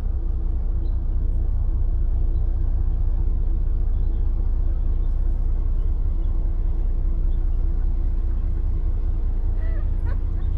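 Engine running steadily: a continuous low rumble with a constant hum.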